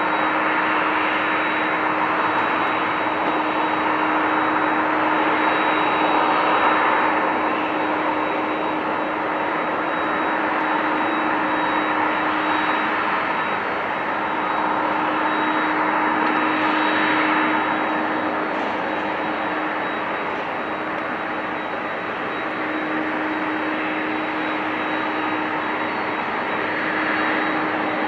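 Jet engines of a Boeing 767 freighter at taxi power: a steady rushing noise with a low hum and a thin high whine running through it, swelling gently a few times.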